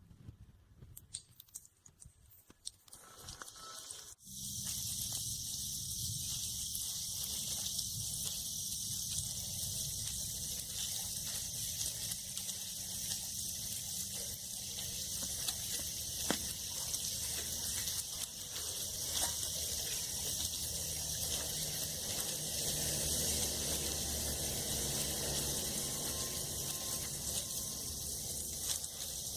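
Steady rain falling, an even hiss that comes in abruptly about four seconds in after a quieter stretch with a few faint clicks.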